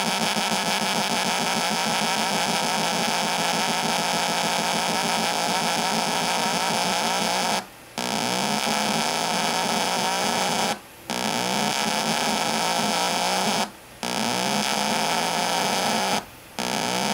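Neon-lamp relaxation oscillator giving a dense, noisy electronic buzz with a fluttering, chattering lower tone under it. From about halfway on, the sound cuts out briefly four times, roughly every three seconds.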